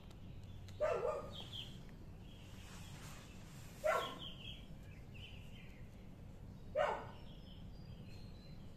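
Three short, loud animal calls about three seconds apart, each falling slightly in pitch, with faint chirping in the background.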